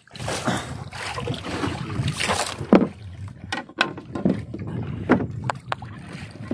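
Gear being handled aboard a small fishing boat while a longline is set, over a steady rumble of water and boat noise. There is one loud knock a little under three seconds in, then a run of sharp clicks and knocks.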